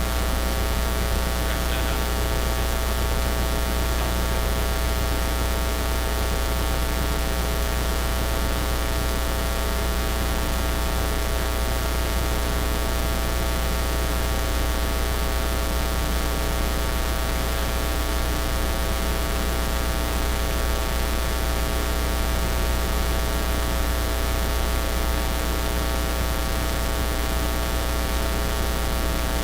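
Loud, steady electrical mains hum and buzz with hiss, unchanging throughout: electrical interference in the live-stream's audio feed rather than any sound in the room.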